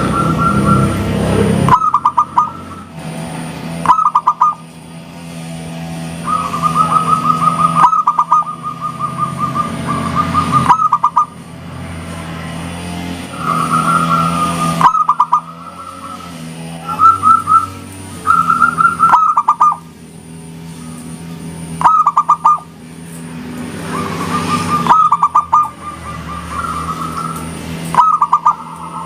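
Zebra dove (perkutut) cooing: repeated phrases of rapid staccato notes, some drawn out into longer rolling trills, with short pauses between phrases, over a steady low hum.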